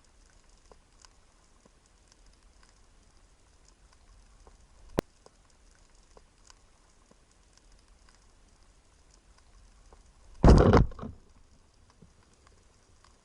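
Underwater ambience: faint, scattered crackling clicks, then a single sharp click about five seconds in. About ten seconds in comes a loud, short, deep burst of noise lasting about half a second.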